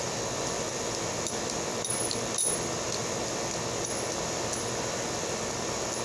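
Balisong (butterfly knife) handles clicking lightly several times as it is flipped, the loudest click about two and a half seconds in, over a steady background noise.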